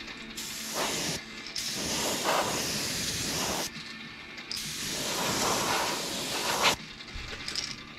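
Airbrush spraying paint in three bursts of hiss, the first short, about a second, and the next two about two seconds each, with brief pauses between as the trigger is released.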